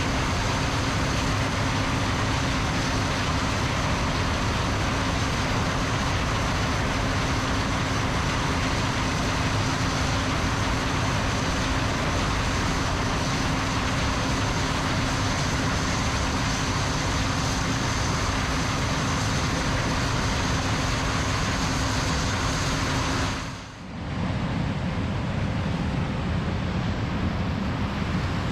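Heavy harvest machinery running steadily in a corn field: a constant engine and machine drone with a steady hum over it. About 23 seconds in the sound dips sharply for a moment and returns as a rougher, noisier drone without the hum.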